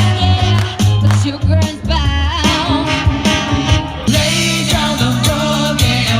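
Pop song with a steady beat, bass, guitar and a singing voice.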